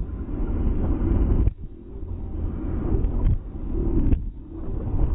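Low, steady engine-and-wind rumble of a vehicle on the move, dropping away briefly about a second and a half in and again about four seconds in.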